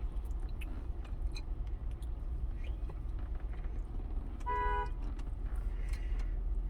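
Steady low rumble of a vehicle, with one short car-horn toot about four and a half seconds in and faint chewing clicks.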